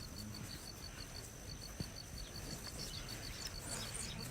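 Insects chirping outdoors in a steady fast pulse, about six chirps a second, with a faint steady high whine behind it. A few short high bird chirps come near the end.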